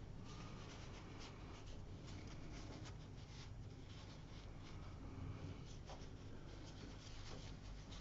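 Faint, scratchy rubbing and brushing of watercolour work on paper: short scattered strokes throughout, over a low steady hum.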